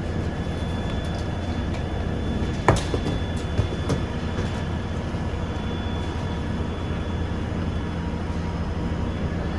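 London Underground Bakerloo line tube train (1972 Stock) running on the track: a steady low rumble with a faint steady whine. A sharp knock comes about two and a half seconds in and a smaller one a second later.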